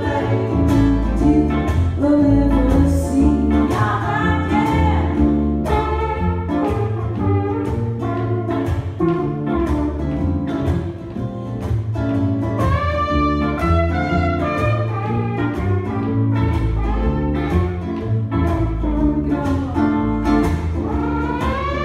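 Live band playing a song: strummed ukulele, electric guitar and double bass keep an even rhythm over a walking bass line, with a woman's voice singing phrases over the top.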